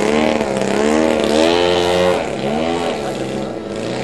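A radio-controlled aerobatic model airplane's engine runs in flight, its pitch swooping down and back up several times as the plane manoeuvres.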